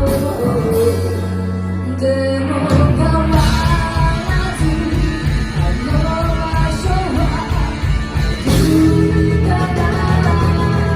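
Live rock band playing with a vocalist singing, with bass, guitar and drums; about three seconds in, the full band kicks back in after a held chord.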